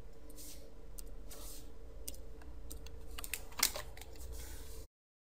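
Scattered taps and clicks of a computer keyboard and mouse, with a small cluster of louder clicks about three and a half seconds in, over a faint steady electrical hum. Near the end the sound cuts out completely.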